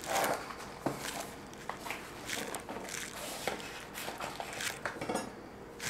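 Hands handling a cardboard product box and its contents: irregular rustling, scraping and small clicks of cardboard and paper, with a louder rustle just after the start.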